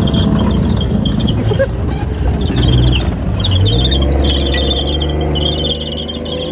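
A Chieftain tank's Leyland L60 multi-fuel engine running with a steady low drone as the tank drives over rough ground. From about two and a half seconds in, its steel tracks squeal in short, repeated high-pitched bursts.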